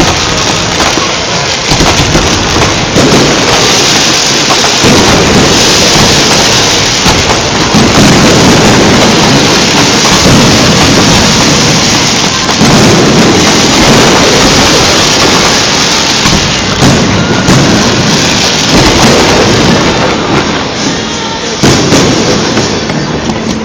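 A dense barrage of fireworks bursting, with many bangs and crackles overlapping, sharp and close together. A sharp new burst of bangs comes in near the end.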